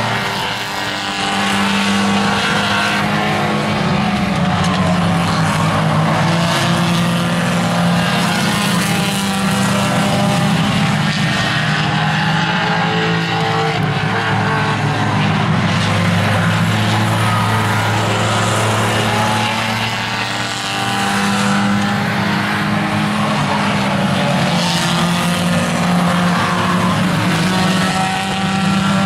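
Several small tuner-class race cars running around a short oval track, their engine notes rising and falling continuously as they accelerate and lift through the turns. Loudness dips briefly about two-thirds of the way through.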